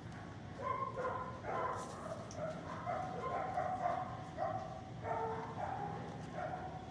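Dog barking repeatedly, a steady run of short barks about two or three a second.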